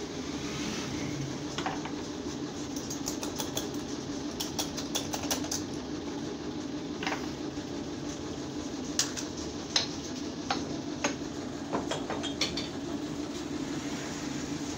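Steel mold of a hand-operated plastic injection molding machine clinking and clacking as its halves are separated and the molded white plastic parts are taken out, over a steady hum. The sharp metal clicks come in two clusters, a few seconds in and again from about two thirds of the way through.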